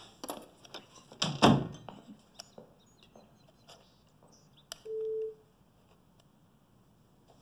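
A door thuds shut about a second and a half in, amid light clicks and taps of small plastic model parts being handled. A single short electronic beep sounds about five seconds in.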